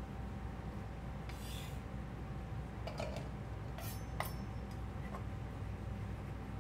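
Peeled garlic cloves scraped together on a wooden cutting board and dropped with light clicks into a small stainless-steel saucepan, then a few sharp clicks of a kitchen knife being handled, over a steady low hum.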